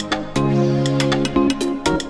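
Electronic background music: sustained synth chords that change a couple of times, over a quick, steady beat of light percussion ticks.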